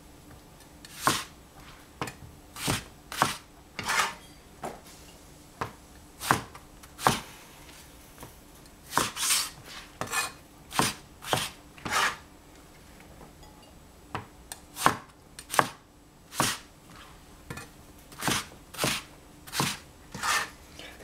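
Cleaver chopping eggplant on a plastic cutting board: a string of sharp, irregular knocks as the blade strikes the board, about one to two a second, with short pauses between runs of cuts.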